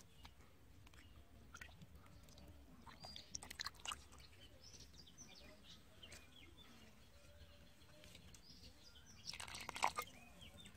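Muddy water in a small fish-filled hole sloshing and squelching in two short bursts, about three and a half seconds in and again near the end, the second the loudest. Faint bird chirps come and go throughout.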